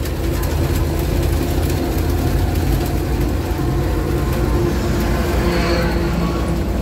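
GAZ-66 truck's V8 petrol engine running steadily under way, heard loud from inside the cab, which sits directly over the engine.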